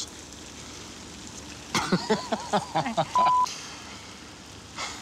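Steady hiss of rain. About two seconds in comes a short burst of voice, cut off by a brief single-pitch censor bleep about three seconds in.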